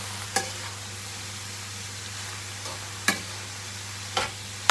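Sautéed bean sprouts and vegetables sizzling in a pan as they are stirred, with a few sharp clacks of the stirring utensil against the pan.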